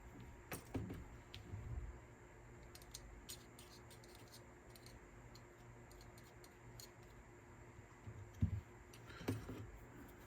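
Faint clicks and light taps of small parts and tools being handled while lubricating the shafts of a cassette deck's tape mechanism, with a few louder knocks near the start and twice near the end.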